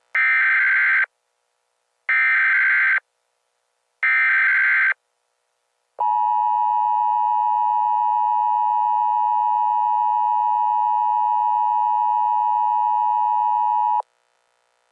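Emergency Alert System tones. Three short bursts of digital header data about two seconds apart, then the steady two-tone attention signal held for about eight seconds and cut off sharply, the standard lead-in to an EAS voice message.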